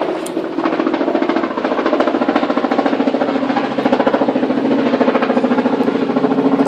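An engine running steadily with a rapid, even pulse, growing a little louder.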